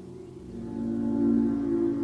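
Gong ringing with a dense cluster of overlapping low tones; about half a second in, a new swell builds and grows steadily louder.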